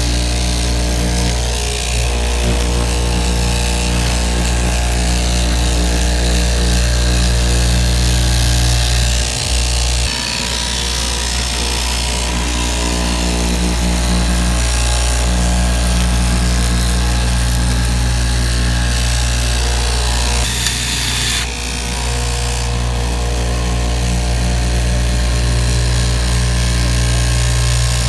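Blue Streak straight-knife fabric cutting machine running with a steady hum while its vertical blade cuts through a stack of fabric layers, with brief dips about ten and twenty seconds in.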